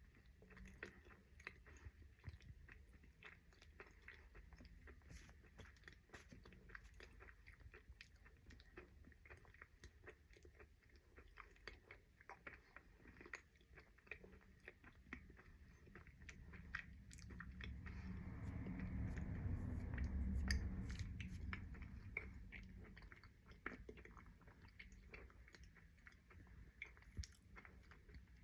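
A person chewing a full mouthful of crunchy food close to the microphone, with many small crunches and clicks. Partway through there is a louder, muffled, low stretch lasting a few seconds.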